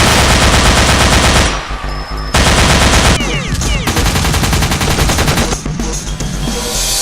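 Rapid automatic gunfire, a machine-gun sound effect, in three long bursts over background music.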